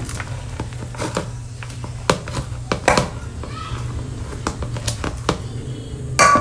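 Scattered knocks and clinks of kitchen items being handled, over a steady low hum. Near the end comes a louder clatter that rings briefly.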